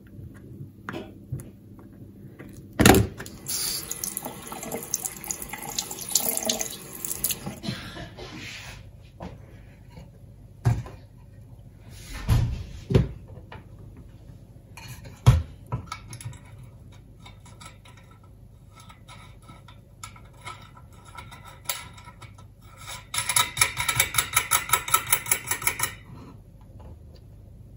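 Small parts being worked by hand on a wooden board: pliers and a metal nut against a 3D-printed plastic knob. There is a sharp knock about three seconds in, then a few seconds of rasping noise, scattered knocks, and a rapid run of clicks near the end.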